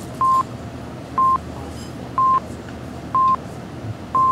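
Film-leader countdown beeps: a short beep at one steady pitch, once a second, five times, one for each number counted down. Beneath them runs a steady hiss with faint clicks.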